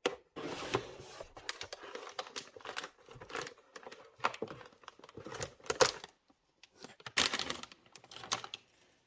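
A cardboard box and its packaging being opened and handled by hand: irregular taps, clicks and rustles of cardboard and plastic, pausing briefly about six seconds in and stopping just before the end.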